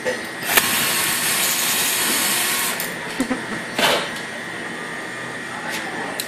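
Electric drill running steadily with a whine, driving a homemade apple peeler. It runs louder for the first two seconds or so, then settles a little quieter, with a few short knocks along the way.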